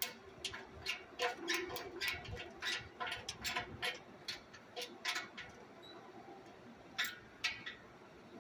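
Irregular short clicks and metallic taps, two or three a second with gaps, from hand tools and loose parts being worked while an air compressor is dismantled for scrap.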